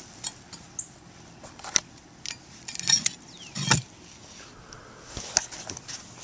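Handling noise: scattered sharp clicks and light metallic clinks, with a heavier knock a little past the middle.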